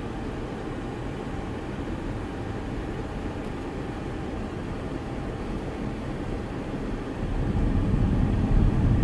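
Steady engine and road noise of a pickup truck heard from inside the cab while driving, getting louder about seven seconds in.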